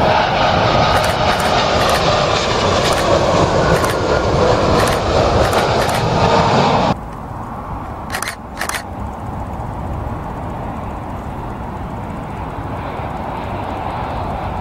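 British Airways Boeing 777-200ER on final approach, passing low: loud jet engine noise with a steady whine, which cuts off suddenly about halfway through. Then the quieter, more distant jet noise of a British Airways Airbus A320-family airliner on approach, with two short clicks soon after the cut.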